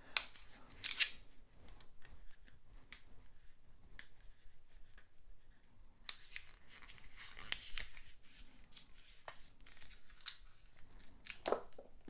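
Hands working a band off a boxed card deck and handling the box: paper rustling and scraping with small clicks, with sharper scrapes about a second in, again between six and eight seconds, and near the end.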